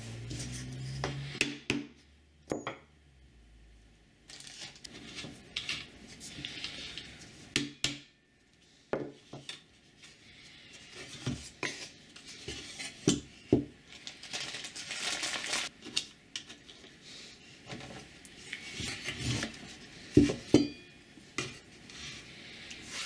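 Hard 3D-printed PLA parts and small wooden blocks being handled and set down on a bench: irregular knocks and clatters with scraping and sliding in between.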